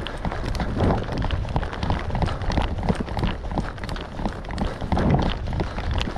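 A person running on foot: a quick, uneven patter of footsteps, with a steady low rumble underneath.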